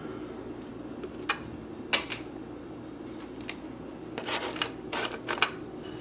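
Plastic and glass parts of a vintage Hamilton Beach Mini Drip coffee maker being handled: a few separate sharp clicks and knocks as the carafe and brown filter basket are moved, then a denser patch of taps and rustling about four seconds in as a paper filter is set into the basket.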